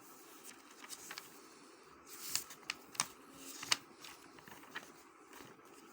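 Soft rustling with a handful of sharp light clicks scattered through the pause, the kind of noise made by handling paper or small objects close to the microphone.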